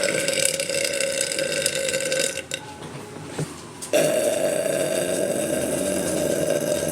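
A woman belching two long, drawn-out burps, each held at one steady pitch. The first runs for over two seconds; after a short pause the second starts about four seconds in and carries on.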